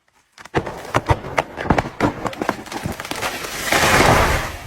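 Wood cracking and snapping in an irregular run of sharp cracks, then a loud rushing crash near the end: a felled tree breaking off its stump and coming down through its branches.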